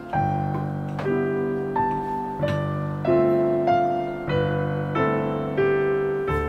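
Background piano music: a gentle melody of single struck notes, about one every two-thirds of a second, over low held notes.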